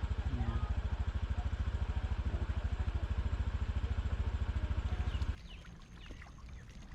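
A small engine running with a rapid, even thumping, shutting off abruptly about five seconds in.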